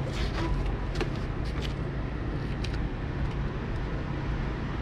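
Steady low hum of street traffic, with a few light taps of slide sandals on the concrete porch.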